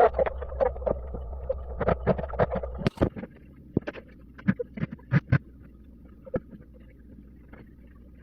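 A string of irregular sharp knocks and clicks over a low steady hum. The hum drops away suddenly about three seconds in, and scattered knocks go on after it.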